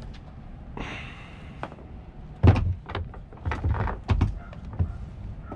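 Knocks and clunks of parts and tools being handled, the loudest about two and a half seconds in, with a brief rustling swish about a second in.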